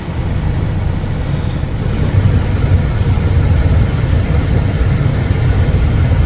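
A vehicle running, a loud, steady low rumble of engine and road noise.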